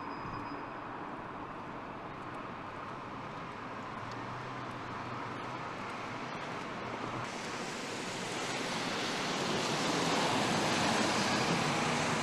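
Street traffic noise: a steady hiss of passing cars that grows louder about halfway through.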